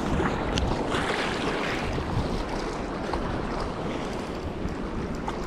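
Wind buffeting the microphone over the wash of small waves in shallow sea water, with a noisier stretch about a second in and a few faint clicks.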